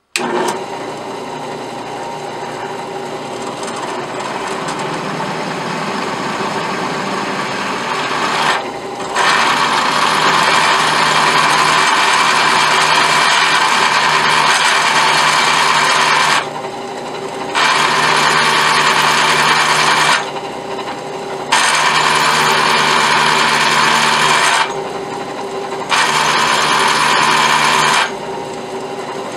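Bench drill press running steadily, then from about nine seconds in a letter S drill bit cutting into a metal oil pan plug with a loud, rasping cutting noise. The cutting comes in four spells, with short drops back to the motor hum as the spindle is raised to break the shavings.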